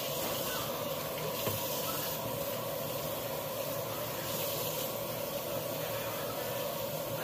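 Kitchen sink faucet running, a steady rush of water while dishes are washed in the sink.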